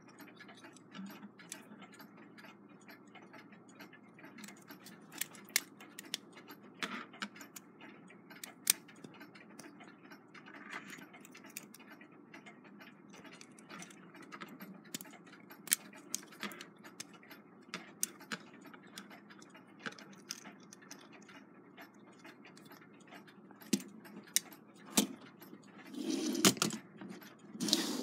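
Irregular small metallic clicks and taps from the brass clock-movement plate and wheel arbors being handled and nudged as their pivots are worked into the plate holes. A louder rustling scrape comes near the end.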